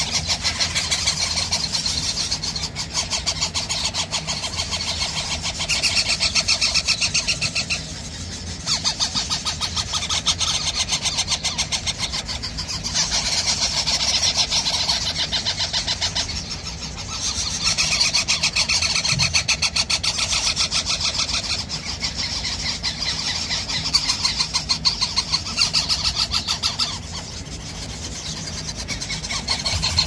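Indian ringneck parakeet chick giving harsh, rapidly pulsing begging calls, in bouts of several seconds with short breaks.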